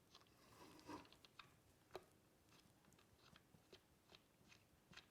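Near silence with faint scattered clicks and taps, one a little sharper about two seconds in: a nut being screwed finger-tight by hand onto a wheel's threaded bolt.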